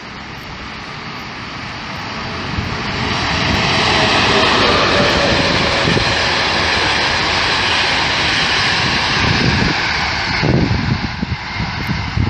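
Express passenger train hauled by a PKP EP09 electric locomotive running through the station at speed: wheel and rail noise builds over the first few seconds, holds loud while the coaches pass, then falls away suddenly about ten seconds in as the last coach goes by. Wind then buffets the microphone.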